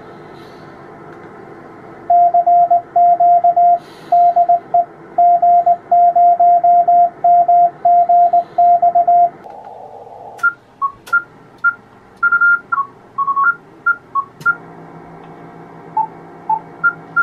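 Amateur radio receiver hiss with a Morse code (CW) tone keyed on and off in a steady rhythm for several seconds. From about ten seconds in come shorter beeps at two higher pitches, alternating, with a few sharp clicks.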